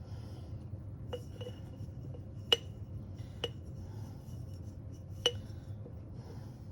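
Glass canning jar of home-canned berry pie filling clinking as it is knocked and scraped while the filling is emptied out: about five short ringing clinks, the loudest about two and a half seconds in and another a little after five seconds.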